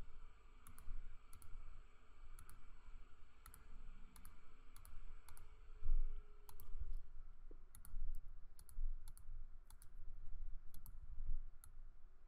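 Computer mouse clicking: a couple of dozen sharp clicks at irregular spacing over a faint steady hum.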